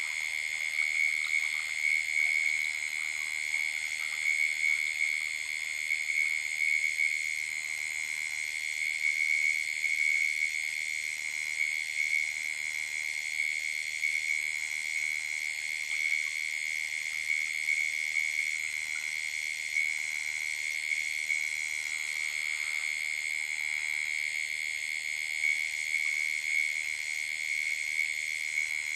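Night chorus of calling insects and frogs: a continuous high-pitched shrill with a faint pulsing that repeats about once a second.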